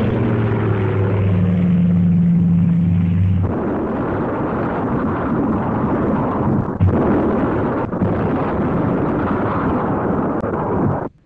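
Air-raid sound effect. Aircraft engines drone on a low steady pitch, with a falling whine at the start. After about three and a half seconds they give way to a dense rumbling din of explosions with a couple of sharper bangs, and the sound cuts off suddenly near the end.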